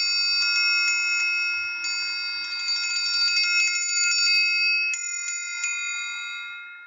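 Triangle struck repeatedly with its metal beater, ringing with high metallic overtones. Fresh strikes come about two seconds and five seconds in, and the sound cuts off abruptly at the end.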